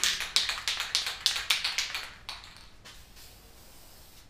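Aerosol spray-paint can being shaken, its mixing ball rattling in quick sharp clicks, about four a second, for a little over two seconds.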